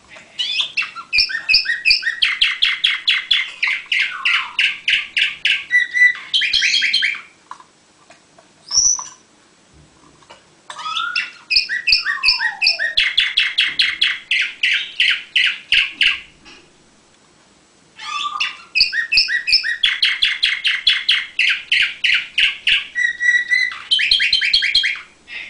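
Orpheus song canary singing three long phrases, each made of fast trills of rapidly repeated notes that change pitch from section to section, with short pauses between phrases and a single short call in the first pause.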